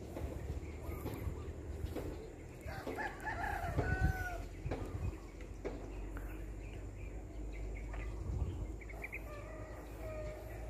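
A rooster crowing twice, once about three seconds in and again near the end, over a steady low rumble.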